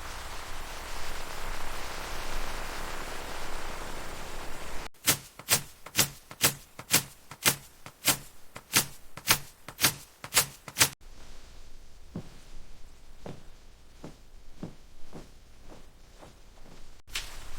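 Evenly spaced sharp strikes, about two a second for some six seconds, then fainter, sparser strikes. Before them comes a steady hiss.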